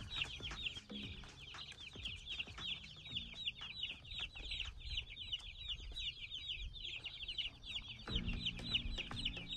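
A flock of chicks peeping continuously: a dense chorus of many overlapping short, high, falling peeps.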